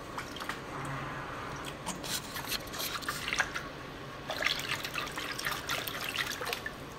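Sea water splashing and dripping in a tank as a segmented fishing lure is dragged through it: many short, sharp splashes in two bursts that stop shortly before the end.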